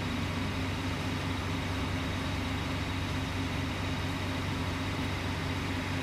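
Engine of heavy tree-removal machinery running steadily, a constant low hum with no revving or cutting strokes.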